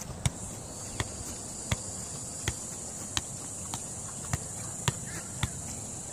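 Football being juggled: about nine touches, a thud off the foot or knee every 0.6 to 0.8 seconds. A steady high insect drone underneath.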